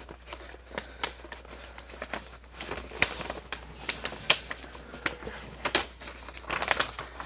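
Packing paper in a snack box crinkling and rustling as it is handled, with irregular sharp crackles.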